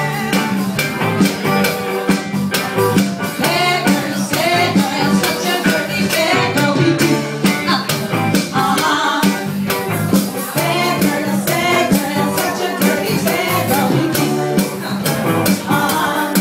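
Upbeat music with a fast, steady beat of shaker and tambourine-like percussion over a pitched bass line.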